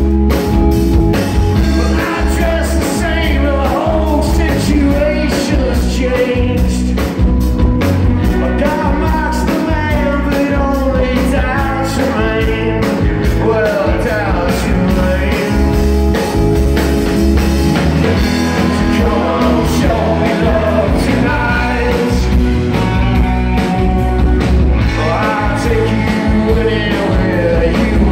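Live rock and roll band playing: a male voice singing over electric guitars, bass guitar and a drum kit keeping a steady beat.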